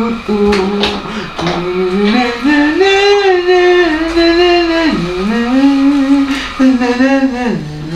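A voice singing a slow melody from a 1960s song, long held notes sliding between pitches.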